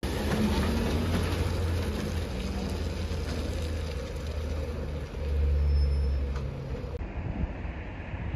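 Vehicle engine idling: a steady low rumble that swells for about a second and a half around five seconds in.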